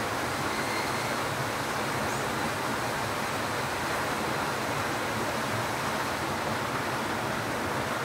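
Steady rain falling, an even hiss that holds at one level throughout.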